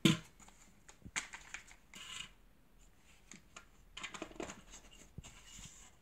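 Hard plastic parts of a Dyson vacuum cleaner's cyclone knocking, clicking and scraping as they are fitted together by hand. There is a sharp click at the start, then scattered light clicks and short scrapes.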